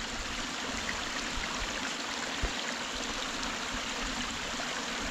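Water running steadily through a small gap torn in a beaver dam.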